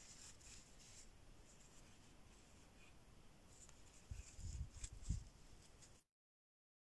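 Near silence with the faint scratchy rustle of a metal crochet hook working thin yarn, and a few soft low bumps of handling about four to five seconds in. The sound cuts out to dead silence about six seconds in.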